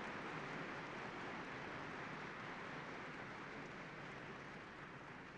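Audience applauding, the applause slowly dying down.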